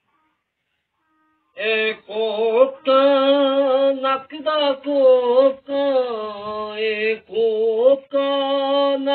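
A man singing a Punjabi mahiya folk song solo, in long held notes that waver and bend, in phrases with short breaks; the singing starts about a second and a half in after a silence.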